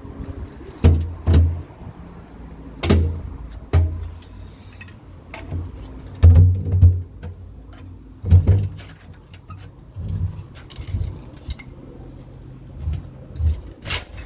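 A drain manhole cover being pried and knocked loose with a steel bar: irregular metal clanks, scrapes and heavy thuds as the cover shifts in its frame.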